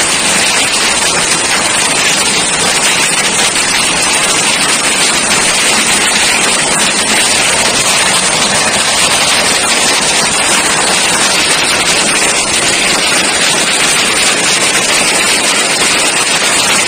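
Heavy rain mixed with small hail pelting wet pavement and road: a loud, steady, dense hiss of countless small impacts.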